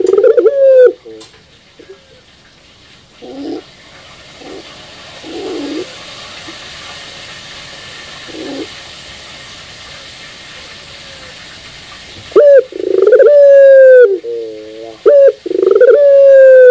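Caged barbary dove (puter) cooing. A loud coo opens, a few soft, short coos come midway, and from about two-thirds through it gives loud, long, repeated coos.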